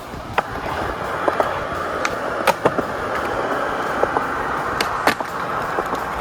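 Skateboard wheels rolling on concrete with a steady grinding rumble, broken by several sharp clacks of the board and trucks striking the ground or an obstacle.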